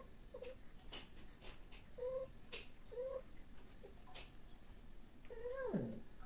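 A cat calling while a pair of cats mate: short, low cries three times, then near the end a longer cry that rises and then swoops sharply down. A few sharp clicks fall between the cries.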